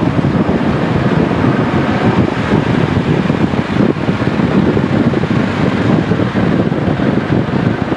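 Vehicle on the move: a loud, steady rumbling noise that does not let up.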